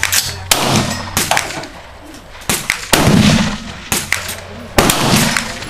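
Gunshots at an outdoor range, several sharp reports at uneven spacing. The loudest comes about three seconds in and is followed by a long low rumble.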